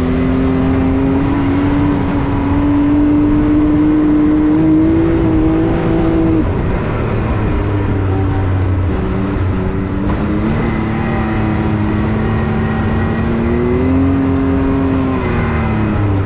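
Can-Am Maverick X3 side-by-side's turbocharged three-cylinder engine running hard on a trail. Its pitch climbs in the first second, holds high for several seconds, then drops about six seconds in. It rises once more and falls back near the end.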